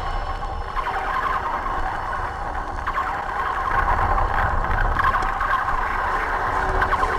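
Electronic music: a dense, hazy texture over steady low bass, without sharp beats.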